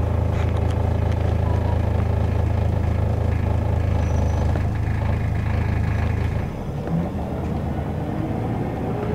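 Scania L94UB city bus with a ZF automatic gearbox heard from inside the cabin on the move: a steady low engine drone over road noise. The low drone drops away about six and a half seconds in, and a faint rising whine comes in near the end.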